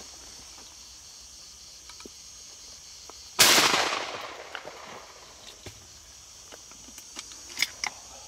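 A single shotgun shot about three and a half seconds in, a sharp blast whose echo dies away over about a second. A few faint clicks follow near the end.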